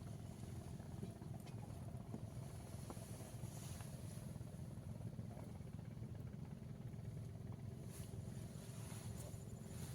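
A motor running steadily at a distance: a low, even hum with faint steady tones above it and a few light clicks.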